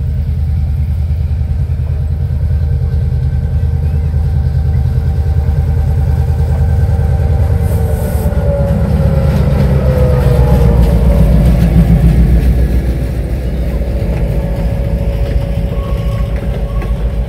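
Diesel switcher locomotive running as it pulls a passenger train past, its engine growing loudest about ten to twelve seconds in, with a whine that drops in pitch as it goes by. Near the end the passenger coaches roll past with a rapid clicking of wheels over the rails.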